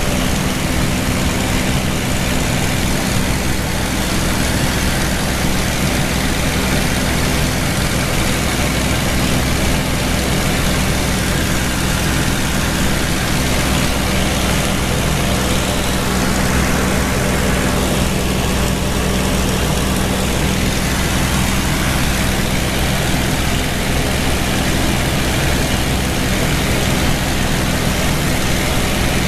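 World War II fighter's V-12 piston engine running steadily in cruise flight, heard from inside the cockpit with wind and propeller noise over the canopy.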